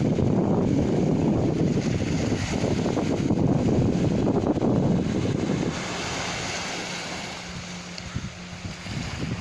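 Wind buffeting a smartphone microphone over gentle surf washing on a sandy shore. About six seconds in the wind drops and the sound grows quieter, with a faint steady low hum for about three seconds.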